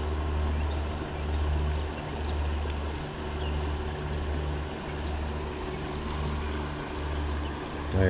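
Shallow creek water running, under a low steady hum that swells and eases about once a second.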